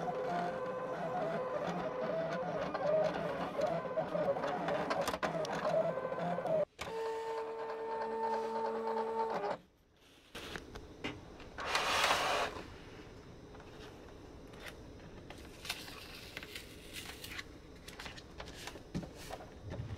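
Desktop electronic cutting machine cutting thick sticker paper: its stepper motors whir with a shifting pitch as the blade carriage traces the sticker outlines, then give a steady tone for a few seconds. It stops about ten seconds in. After that there is a brief noise and faint clicks.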